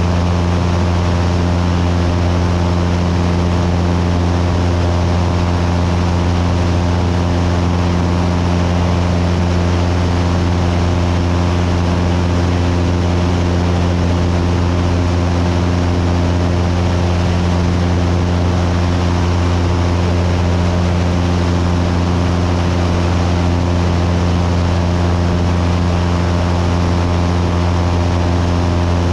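Cessna 172's piston engine and propeller running steadily in flight: a loud, even, deep hum with a stack of overtones and a rush of air noise over it, unchanging throughout.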